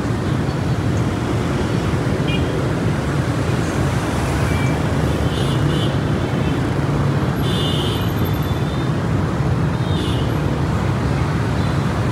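Steady rumble of city street traffic, motorbikes and cars running close by, with a few short high horn toots in the background.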